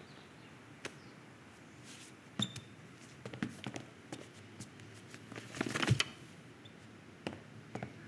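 Sparse film foley: soft footsteps and light knocks on a wooden floor, with a short louder clatter a little past halfway.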